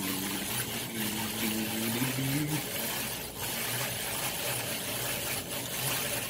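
Hand-cranked rotary egg beater whirring and rattling as it beats eggs in a bowl, cranked steadily, then stopping right at the end.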